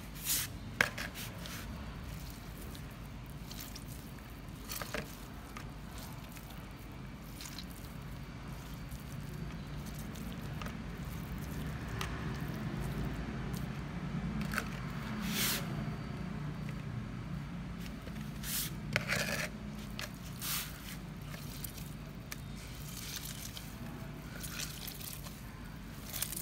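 Hands squeezing water-soaked sandwich bread over a plastic bowl, the water squished out and dripping, then the wet bread crumbled and kneaded against the bowl. A few sharp clicks and scrapes stand out over a low steady hum.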